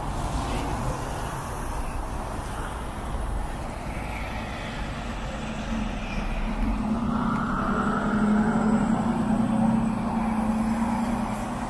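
City bus traffic at a bus stop. Steady road noise, with a vehicle's engine or motor hum building about halfway through, loudest near the end, then easing as it passes.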